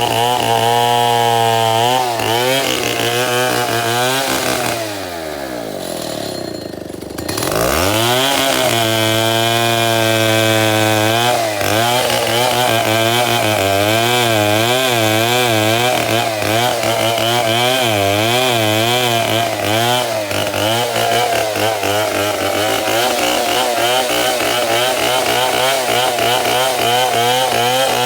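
Chainsaw running at high revs, its pitch wavering as the chain bogs and recovers while cutting wood. About five seconds in it drops to idle, then revs back up a couple of seconds later and carries on cutting.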